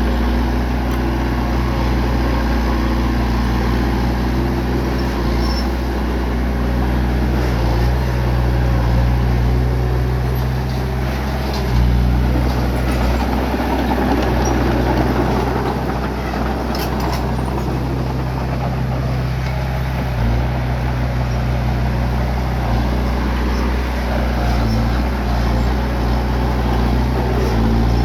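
Bulldozer's diesel engine running steadily, with a louder, rougher stretch of noise in the middle.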